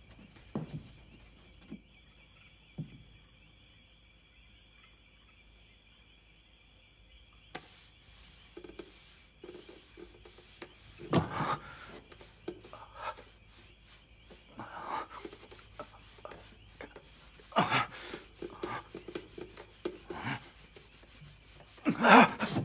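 Night insects, crickets, chirping steadily in the background, with a higher chirp recurring every few seconds. From about a third of the way in, soft rustling and movement sounds come and go, the loudest near the end.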